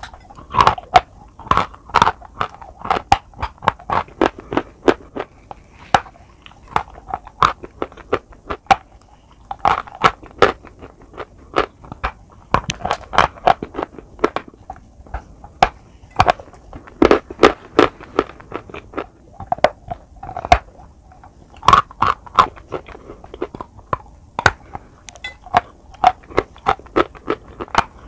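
Close-miked biting and chewing of a dry chalk bar: an irregular run of sharp, crumbly crunches and snaps, often in quick clusters, with softer grinding between bites.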